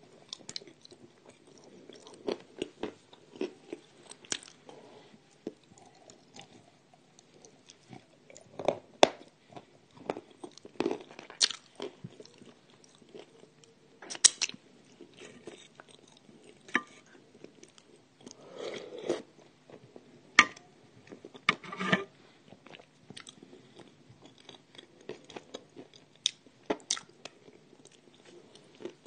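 A person biting and chewing pieces of edible clay, with irregular crisp crunches and several louder bites scattered through.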